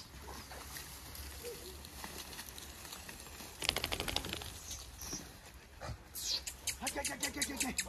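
Hunting dogs yelping and barking in quick runs, once about halfway in and again more densely near the end.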